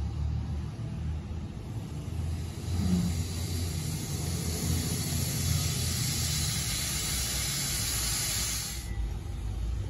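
Steam hissing from Vulcan Iron Works 0-4-0 coal-burning steam locomotive No. 85, building up about a second and a half in, holding steady for several seconds and cutting off suddenly near the end, over a low rumble from the train.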